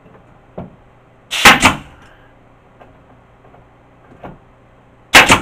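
Nail gun firing into pine tongue-and-groove ceiling boards, fixing a board in place overhead: two loud, sharp bangs about four seconds apart, the first a quick double. Each bang comes shortly after a lighter knock.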